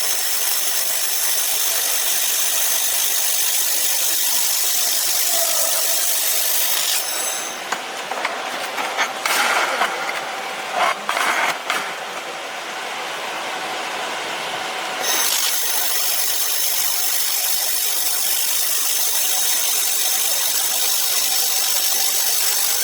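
Laser welding machine working 6 mm carbon steel: a steady hiss with thin high whining tones. It stops about seven seconds in, a few clicks and knocks follow, and it starts again about eight seconds later.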